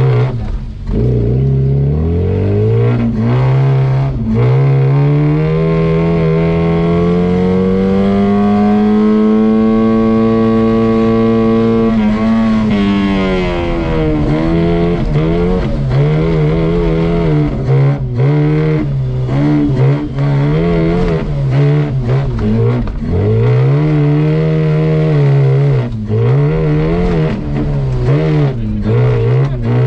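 Offroad race car's engine heard from inside the cabin. The revs climb for about ten seconds, hold high, then drop, and then rise and dip over and over as the throttle is worked, with occasional sharp knocks.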